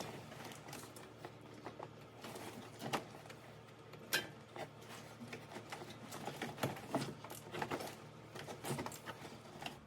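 Faint, scattered clicks, knocks and rubbing of hands and a ratchet working a serpentine belt back onto the engine's pulleys, with the belt tensioner held off.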